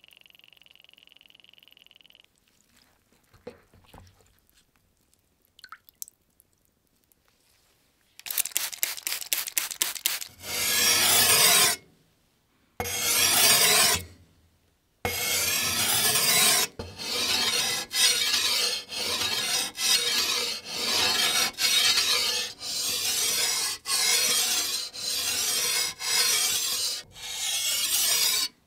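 Rhythmic abrasive rubbing strokes, about one a second with short pauses between them, after a brief run of quick short strokes. A faint steady high tone sounds for the first two seconds.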